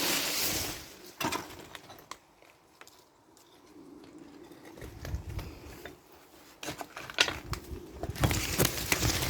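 Pigeons cooing low and steadily inside a derelict building, with scattered knocks and footsteps on debris that get louder near the end.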